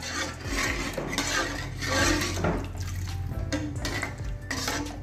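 A metal spoon stirring and scraping around a metal kadai of thin buttermilk batter, in repeated strokes.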